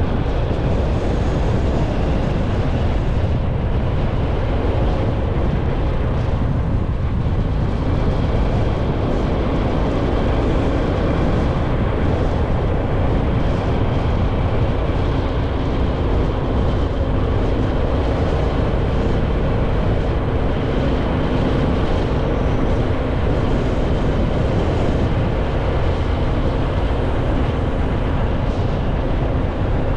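Motorcycle riding along at a steady speed, its engine running steadily under heavy wind rumble on the microphone.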